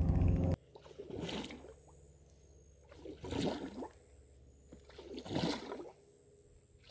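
Resin popper fishing lure being jerked across the water on the retrieve, giving three short pops and splashes about two seconds apart. Before them, a loud noise cuts off abruptly about half a second in.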